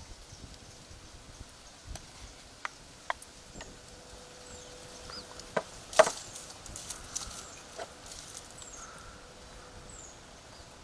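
Scattered sharp knocks and clicks of wooden bowls and spoons being handled on a wooden table, the loudest about six seconds in, over a quiet outdoor background.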